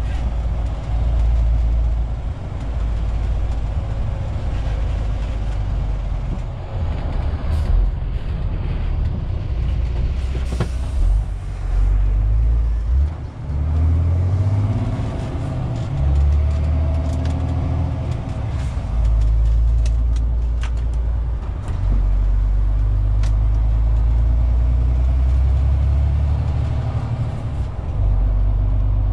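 MAN TGX 470 truck's straight-six diesel engine and road noise heard from inside the cab. The engine note changes pitch several times as the revs rise and fall. A few short clicks sound over it.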